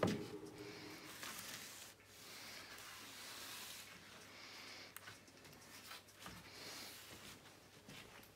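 A sharp knock right at the start as a steady hum cuts off. Then faint rustling and handling noise from a solid-softwood arch trim piece being held and turned over.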